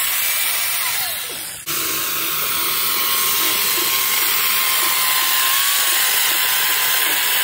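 A Sun Joe electric pole chainsaw runs at full speed, a steady motor whine over chain noise. It cuts off briefly about a second and a half in, then runs on as the chain cuts into a small tree trunk.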